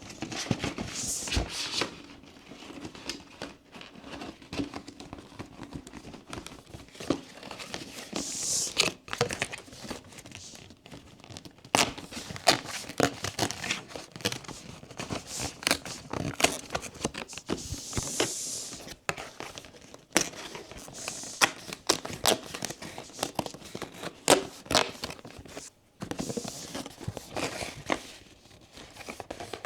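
Blind-box packaging being handled up close: crinkling and tearing, with many small clicks and taps, and rustling swells that come and go several times.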